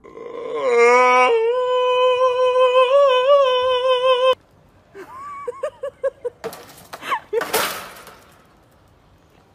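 Domestic cat giving one long, loud yowl of about four seconds, rising at the start and then held at a steady pitch with a slight waver, cut off abruptly. After it come a few short high yips and some noisy bursts.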